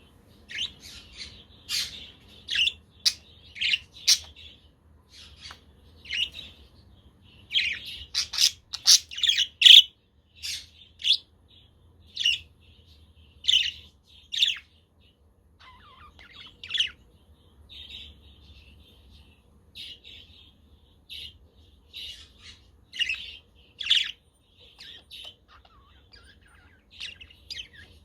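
Budgerigars chirping and chattering: many short, sharp chirps in quick, irregular succession, busiest and loudest about a third of the way in.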